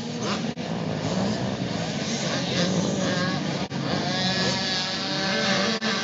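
Motocross bike engines revving up and down, several pitches overlapping, as the bikes ride the track.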